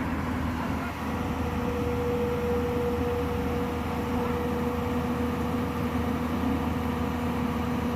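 Heavy diesel machinery running steadily, with a steady whine coming in about a second and a half in.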